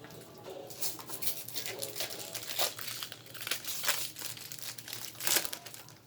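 Trading-card pack wrappers crinkling and being torn open by hand, an irregular run of crackles with one loud crackle about five seconds in.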